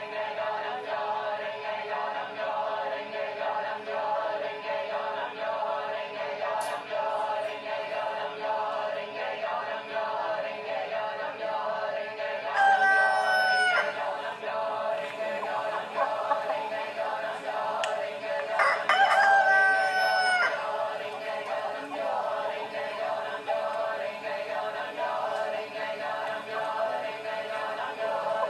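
Steady droning, choir-like music throughout. A long animal call comes through it about halfway in and again some six seconds later; each call is held for about a second and a half and falls in pitch at the end.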